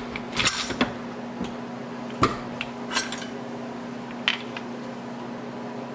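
Sharp metal clinks and knocks as the crankcase cover of an 18 hp Briggs & Stratton engine is worked loose and pulled off, about five in all, the loudest a little past two seconds in, over a steady low hum.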